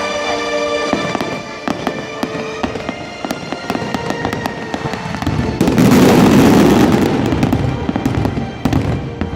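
Fireworks going off in a quick string of sharp crackles and bangs, building to a dense, loud barrage about halfway through that lasts a couple of seconds. Music plays underneath.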